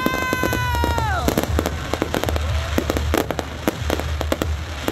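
Fireworks going off: a dense run of sharp cracks and pops over repeated low booms. A held high whistling tone drops away about a second in.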